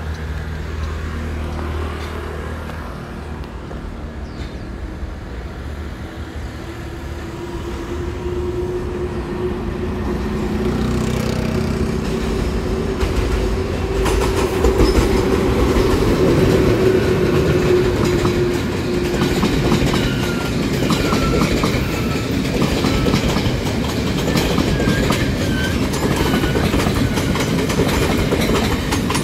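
Taiwan Railway E500-class electric locomotive hauling a Chu-Kuang express passenger train past. It grows louder as it approaches, with a steady hum as the locomotive passes, then the coaches' wheels click over the rail joints as they roll by.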